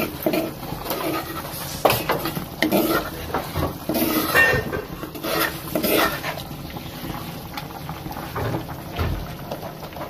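A spoon scraping and knocking against the inside of a grinding pot as ground crayfish paste is scraped out, in a run of irregular clinks and scrapes.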